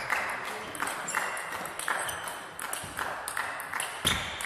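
Table tennis rally: the celluloid ball cracking off rubber-faced bats and bouncing on the table, a quick run of sharp clicks about three a second, with a heavier hit about four seconds in.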